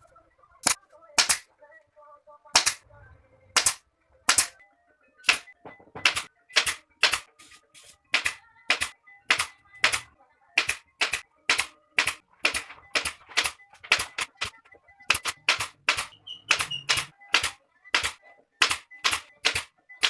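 A long series of sharp, short clicks, irregularly spaced at about two a second, over faint background music.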